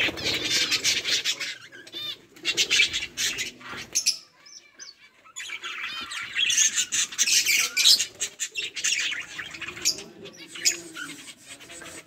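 A flock of budgerigars chattering and chirping in fast, overlapping high chirps, easing off briefly about four seconds in before picking up again.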